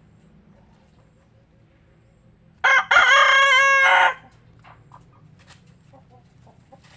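Rooster crowing once, loud, about a second and a half long and starting near the middle: a short first note, then a long held, wavering call.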